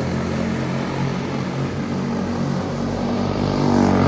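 Several quarter midget race cars, single-cylinder Briggs & Stratton Animal four-stroke engines, running flat out on a small oval. Their engine notes overlap and shift in pitch as the cars go round, growing louder near the end as cars come past close by.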